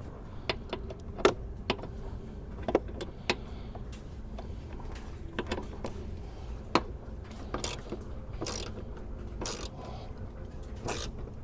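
Ratchet with a 10 mm socket tightening the air filter box screws: irregular sharp clicks and a few short runs of ratchet clicking.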